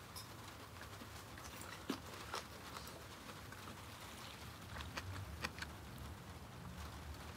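Chicken gizzard skewers grilling over charcoal in a shichirin, with scattered sharp pops and crackles at irregular moments over a faint sizzle and a low steady rumble.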